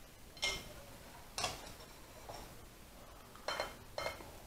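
Sharp clicks and clinks of eating at the table: cutlery, plates and hard seafood shells knocking together, about five separate hits spread over a few seconds.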